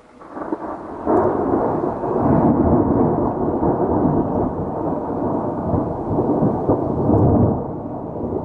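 A long roll of thunder: it swells in, breaks loud about a second in, rumbles on for several seconds and dies away near the end.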